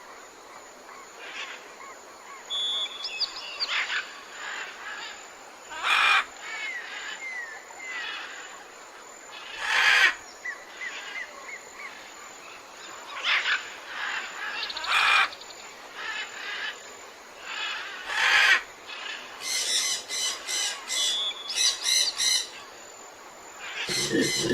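Wild animal calls: scattered high chirps and short rising whistles, with several louder harsh calls and a quick run of repeated notes near the end.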